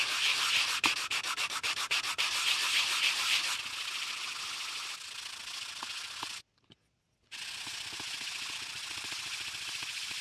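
A PVC reducer bushing rubbed by hand across a sanding block, sanding its face flat: a scraping of plastic on abrasive. Quick, louder strokes for the first few seconds, then a quieter, even rubbing, broken by a brief silence about two-thirds through.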